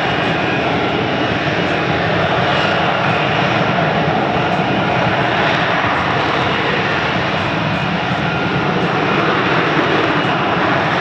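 Lockheed Martin F-35B Lightning II hovering in STOVL mode, its F135 jet engine and shaft-driven lift fan running at high thrust. The jet noise is loud and steady throughout.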